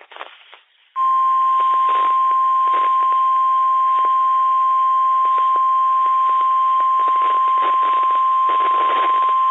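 NOAA Weather Radio warning alarm tone (the 1050 Hz attention signal of an Emergency Alert System activation): a single steady, loud beep that starts about a second in and holds at one pitch for about nine seconds, over faint radio static.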